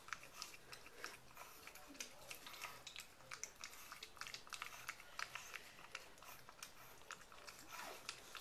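French Bulldog puppy eating from a stainless steel bowl: faint, quick, irregular crunching and clicking as it chews.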